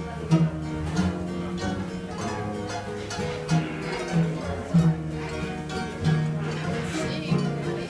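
Live band music on plucked strings over a steady bass line: an instrumental passage of a Spanish-language song, with no singing.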